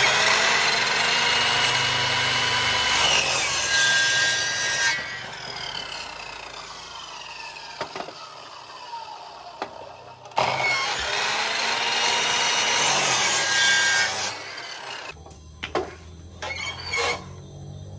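Electric miter saw crosscutting a wooden board twice: the motor runs and the blade cuts through, then winds down with a falling whine after each cut, the second cut about ten seconds in. A few knocks near the end.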